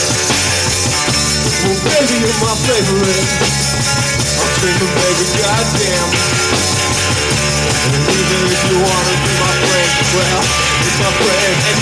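Live rock band playing loudly and steadily: electric guitar, bass guitar and drum kit, with bending melodic lines over the rhythm.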